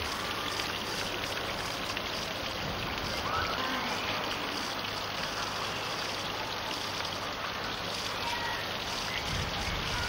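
Steady rushing hiss like running water, with faint distant voices now and then.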